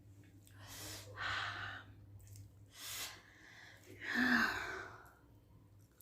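A person's breath while eating: three breathy, hissing exhales, the last and loudest carrying a short voiced 'haa'.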